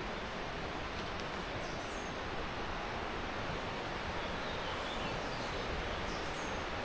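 Steady rush of flowing river water, with a few faint, short, high bird chirps over it.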